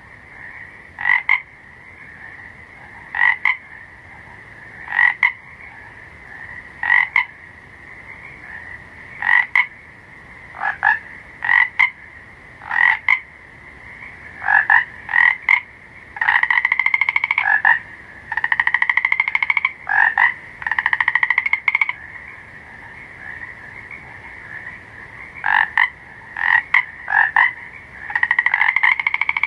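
Frogs croaking: short calls repeat about every two seconds over a steady chorus at a similar pitch. From about halfway through, longer rapid-pulsed trilling calls come in, each rising slightly in pitch.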